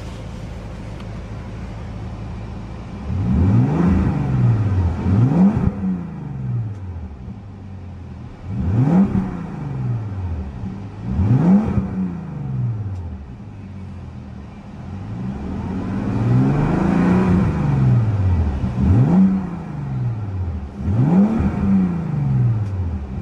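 2012 Bentley Continental GT's twin-turbocharged 6.0-litre W12 engine idling smoothly, then revved about seven times. Each rev rises and falls in pitch, and one is held longer about two-thirds of the way through.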